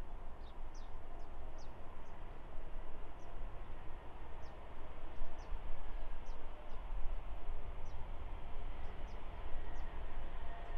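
Embraer E190 jet airliner's twin turbofans heard from beside the runway as it lands and rolls out, a steady, even rumble without any sharp event. Short bird chirps, about one or two a second, sound over it.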